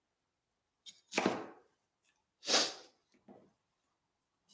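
Two short scraping swishes, about a second and a half apart, of a chef's knife and bell pepper pieces being moved across a wooden cutting board, with a fainter touch after the second.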